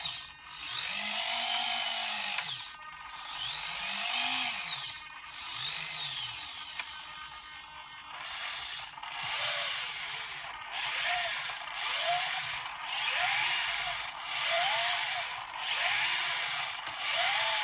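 Electric drive motor and gearing turning a 3D-printed robot torso, whining with a pitch that rises and falls as each move speeds up and slows down. There are three longer moves first, then a run of shorter moves about once a second.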